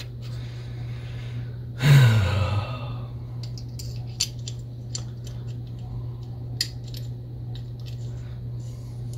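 Small metal parts of a True Temper 327 spincast reel clicking and ticking as the shaft and gear are handled and fitted back into the reel body. A short sigh comes about two seconds in, and the clicks are scattered and irregular after it.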